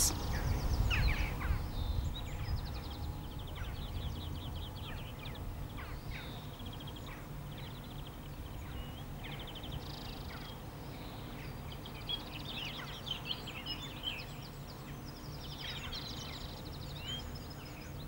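Small wild birds singing, with short chirps and quick trills repeating now and again, over a steady low background rumble.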